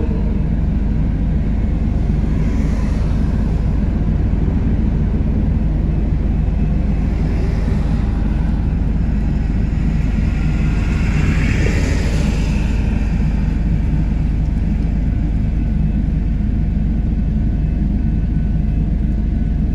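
Steady low vehicle rumble, with a car driving past about eleven to twelve seconds in, its tyre and engine noise swelling and fading.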